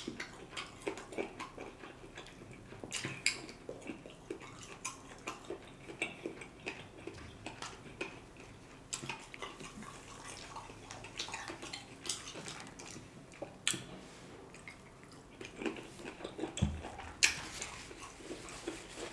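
Close-up eating sounds: wet chewing and lip smacks as lobster meat and noodles are eaten by hand, with scattered sharp clicks and taps.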